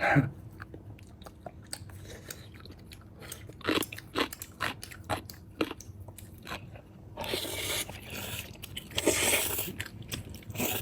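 Close-up eating sounds: scattered bites and chewing, with a louder, noisier stretch of crunching about seven seconds in.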